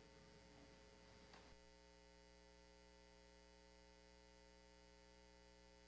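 Near silence: a faint steady electrical mains hum.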